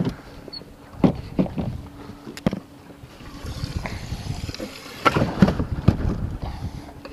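Knocks and clatter of a caught zander being handled in a fishing boat, a few single knocks and then a denser burst of clatter about five seconds in, over a faint steady motor hum and wind.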